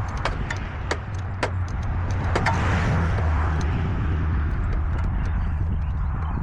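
Mini excavator's engine running steadily with a low rumble, with several sharp metallic clicks and knocks in the first few seconds.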